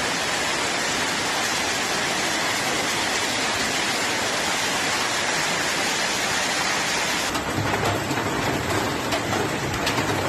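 Hail and heavy rain pelting down, a dense steady hiss of countless impacts. About seven seconds in the sound changes abruptly to a duller pelting with a low rumble under it and sharper separate hits.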